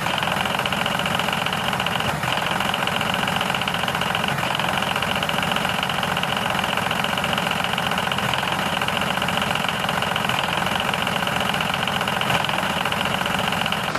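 A motor running steadily at constant speed.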